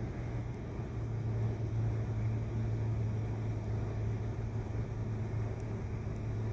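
Vehicle engine running steadily with a constant low hum.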